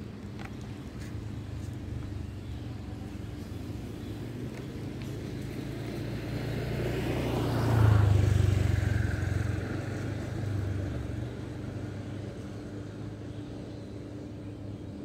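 A motor vehicle passing by: its engine and tyre noise builds to a peak about halfway through and then fades, over a steady low hum.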